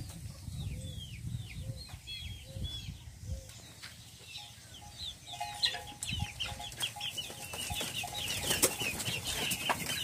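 Chickens clucking and chirping in a coop: a quick run of clucks in the middle, then many high chirps crowding together and growing louder toward the end.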